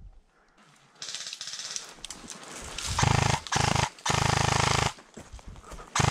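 Airsoft electric rifle firing on full auto: a fast, buzzing rattle in short bursts, the first about three seconds in, a longer one just under a second around four seconds in, and another starting right at the end. A rustling hiss comes before the bursts.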